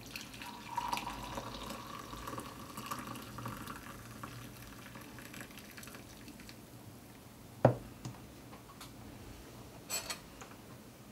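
Coffee pouring from a glass French press into a ceramic mug, a thin splashing stream for about the first six seconds. A sharp knock near eight seconds in as the press is set down on the worktop, then a couple of faint clicks near the end.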